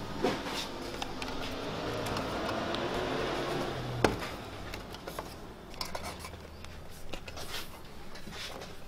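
Rubber cushion being pressed and worked by hand into a corner of a sewing-machine table cutout: a steady rubbing noise for about four seconds, one sharp knock, then a few light taps and clicks.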